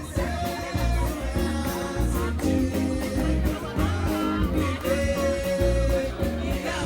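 A song with a singing voice over plucked guitar and a steady, pulsing bass beat.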